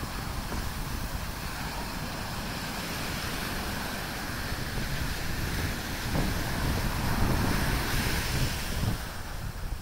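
Ocean surf washing onto a sand beach, with wind buffeting the microphone. The surf swells louder about six seconds in and eases again near the end.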